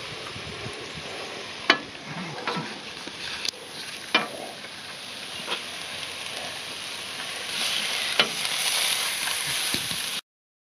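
Burger patties, sausages, peppers and onions sizzling on a barbecue grill: a steady frying hiss with scattered sharp pops and clicks. The sizzle grows louder near the end, then the sound cuts off suddenly.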